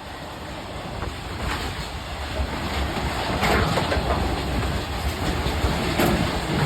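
A train running past on the rails, a steady rumble that grows louder, with a few sharp clacks of the wheels over rail joints.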